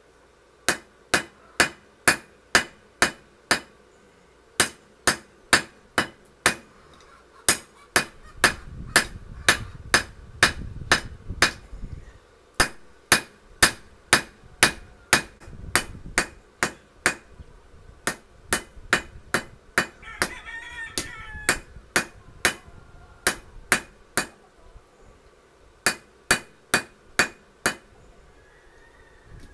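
Hand hammer striking a hot lawnmower-blade knife blank on a steel anvil, sharp ringing blows at about two a second in runs of several seconds with short pauses between them: forging the blade.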